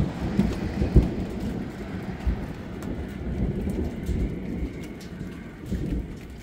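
Thunder rumbling with sharp cracks about a second in and again near the end, dying away at the close, over steady rain falling.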